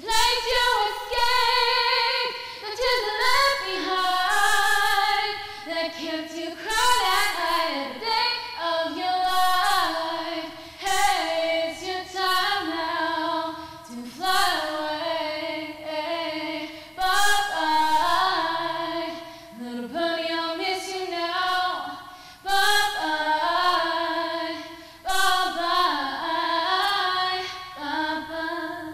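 A woman singing solo and unaccompanied, close-miked on a lavalier, moving between held notes with gliding pitch. The singing ends right at the close.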